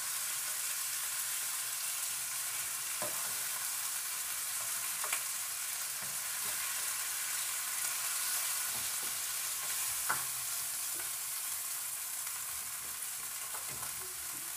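Shrimp sizzling steadily in a frying pan, with a few faint clicks.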